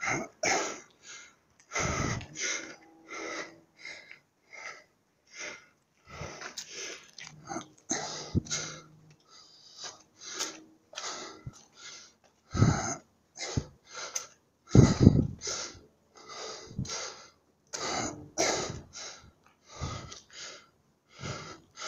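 A man breathing hard close to the microphone from the exertion of climbing stone steps in the heat: quick, heavy panting breaths, roughly two a second, with a few much louder puffs.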